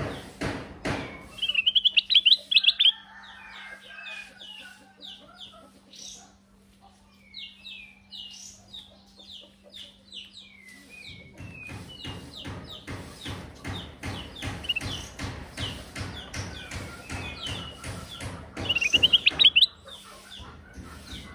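Kutilang emas, a bulbul, singing: short whistled notes repeated throughout, with a rapid burst of bright chattering notes about two seconds in and again near the end, these bursts being the loudest. Dense clicking and tapping runs under the song, with a faint steady hum.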